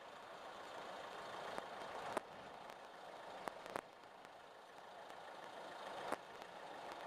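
Rough sea: a steady rushing noise of churning water and breaking waves that swells and fades, with a few sharp clicks.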